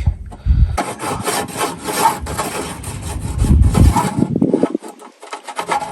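Rasping, scraping strokes of sheet metal being worked by hand, as the steel sill repair panel is handled and fitted; the scraping stops briefly near the end, then starts again.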